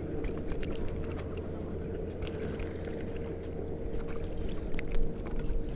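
Light clicks and ticks of a crappie being unhooked from a jig on a wire umbrella rig, over a steady low hum with a constant faint tone.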